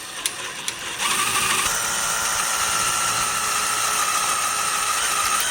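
Power drill with a small bit boring holes into the rubber of an old leaf spring bushing. A few clicks and a soft start come first, then about a second in it runs steadily at full speed with a constant whine.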